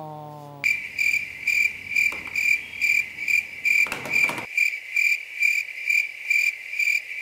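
Cricket chirping sound effect, a high chirp repeated steadily about two to three times a second: the comic 'crickets' cue for dead silence, with nobody calling. A brief pitched tone opens it, and a short rustle-like noise sounds about four seconds in.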